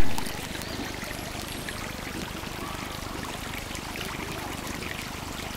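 Steady rush of running water, like a stream or waterfall. It opens with a sharp click at a cut in the recording.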